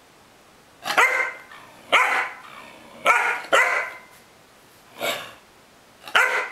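Young black-and-tan puppy barking, about six short sharp barks at uneven intervals starting about a second in, while crouched in a play bow.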